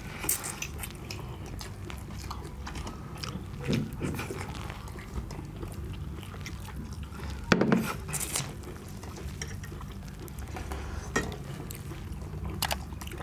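Close-up chewing and biting of chicken curry and rice, with irregular wet mouth clicks and a louder crunch about seven and a half seconds in.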